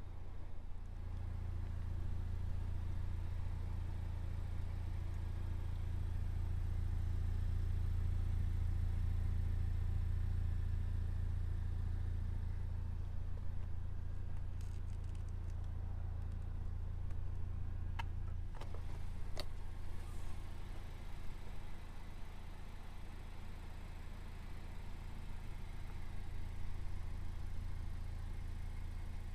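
Honda Civic Type R's 2.0-litre turbocharged four-cylinder running steadily at idle, a low even hum that swells and then eases off. A few light clicks come about two-thirds of the way through.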